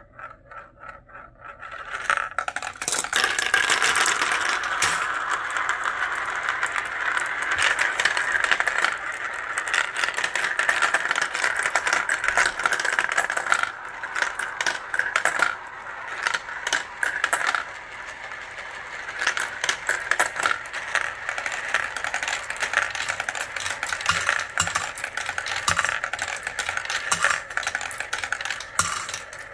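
Many marbles rolling and clattering through a plastic marble run, circling inside the wide plastic funnel bowls with a dense stream of clicks over a steady rolling whir. It gets much louder about two seconds in.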